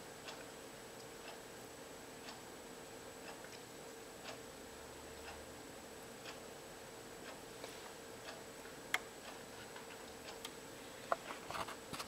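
Faint ticking about once a second, steady and even, over a constant low hum, with a few sharper, louder clicks near the end.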